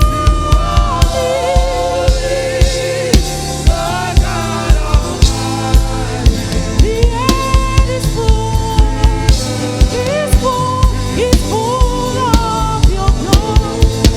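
Live gospel worship music: a drum kit keeps a steady beat under a sustained, wavering melody line.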